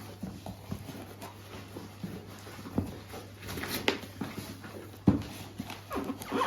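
Cardboard packaging of a high pressure washer being handled and opened: scattered clicks and rustles, with a sharp knock about five seconds in.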